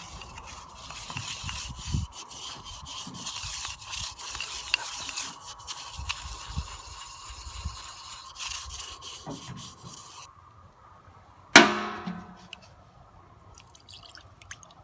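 A car part being scrubbed with a brush while it is washed in petrol: a steady, rough bristle-scrubbing noise that stops about ten seconds in. Shortly after, a single sharp knock with a brief ring is the loudest sound.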